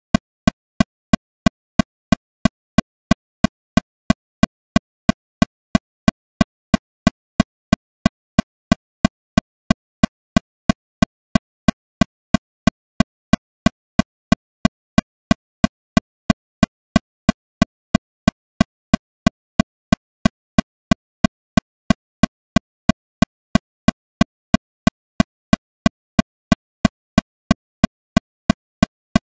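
Metronome clicking steadily at 182 beats per minute, about three sharp, evenly spaced clicks a second with silence between them.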